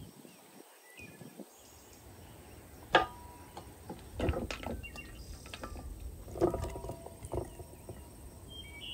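Raw chicken drumsticks tipped from a metal colander into an enamel basin: several sharp knocks and clatters of the bowls, one a few seconds in and a cluster just after, a couple ringing briefly. Wind rumbles on the microphone underneath.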